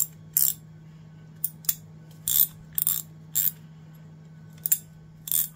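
A New Britain 3902 3/8-inch hand ratchet, just cleaned and reassembled, being worked by hand. It gives about eight short spurts of rapid clicking as the pawl skips over the gear teeth, at irregular intervals.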